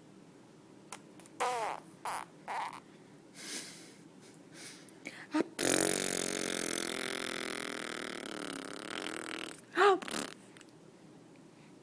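A five-month-old baby blowing raspberries, buzzing spit through the lips: a few short ones early, then one long buzz of about four seconds from about halfway, followed by a short squeal near the end.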